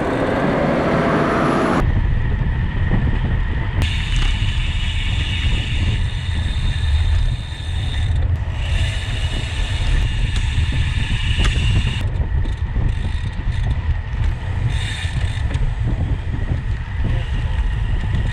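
Wind buffeting the microphone while riding a bicycle, a dense steady low rumble with road noise. The first two seconds hold a louder rush of noise that then drops away.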